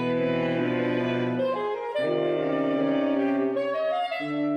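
Saxophone quartet of soprano, alto, tenor and baritone saxophones playing held chords together, the chord changing about two seconds in and again near the end.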